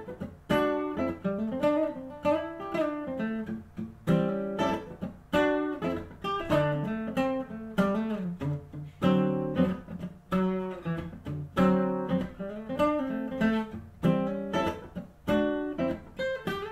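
Acoustic guitar music: a plucked melody over strummed chords, with phrases that repeat about every two seconds.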